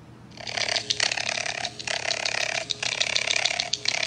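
Raccoon chittering: a rapid rattling trill in runs of about a second, broken by short pauses.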